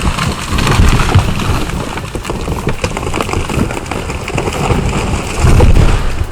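Dolmar 7900 two-stroke chainsaw with a 34-inch bar cutting deep into a massive trunk, a loud, rough noise that swells about a second in and again near the end.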